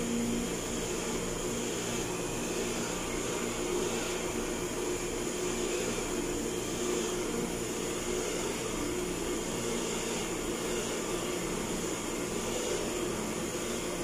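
Electric water pump for a pressure-tank system running with a steady hum.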